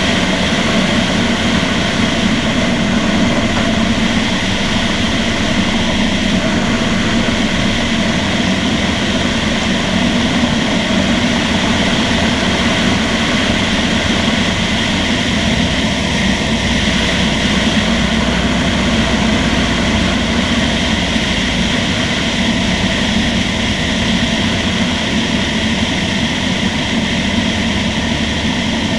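Piper Super Cub's piston engine and propeller running steadily in cruise flight, a constant drone heard from a wing-mounted camera.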